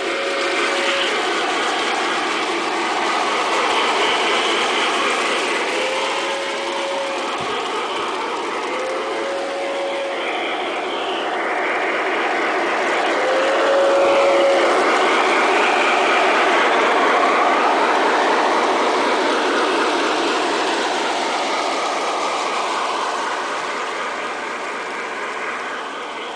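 Aristo-Craft Pacific model steam locomotive running on garden railway track: steady mechanical clatter from its wheels and gearing, mixed with the simulated steam sounds of its QSI sound system. Brief steady tones come a few times, and the sound grows louder about halfway through as the engine comes near.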